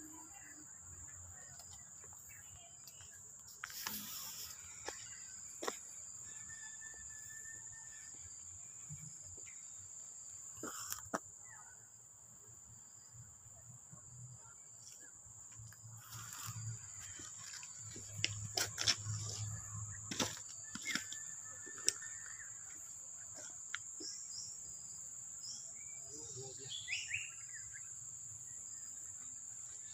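Steady high-pitched insect drone, with scattered clicks and knocks and a few bird chirps near the end.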